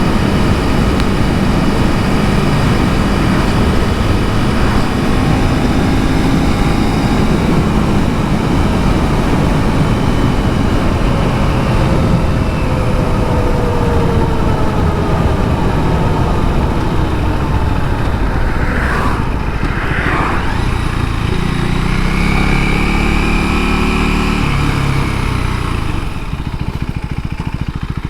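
KTM 390 Duke's single-cylinder engine running while riding, mixed with steady road and wind noise; the engine pitch slides down about halfway through, rises and falls again later, and the sound eases off about two seconds before the end.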